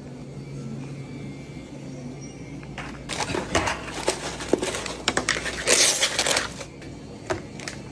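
Crackling, crunching sounds of convenience-store food being handled, in irregular bursts for about three and a half seconds after a low hum, loudest near the end, with one last short crackle.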